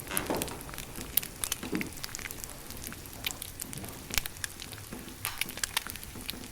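Dense, irregular crackling: a constant patter of small clicks with no steady tone.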